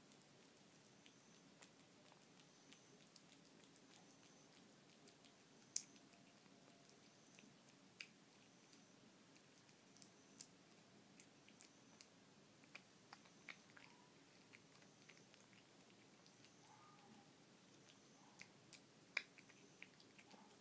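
Cat eating tuna soup-style wet cat food: faint, irregular wet clicks and smacks of chewing, with a few sharper ones about six and eight seconds in and near the end.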